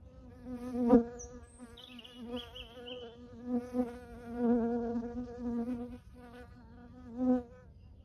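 A flying insect buzzing close to the microphone, its pitch wavering and its loudness swelling and fading as it moves about. It is loudest about a second in and again near the end.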